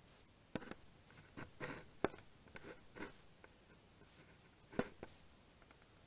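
Handling noise from a camera on a homemade selfie stick being raised and positioned: a series of scattered knocks and short scrapes, the sharpest about two seconds in and again near the end.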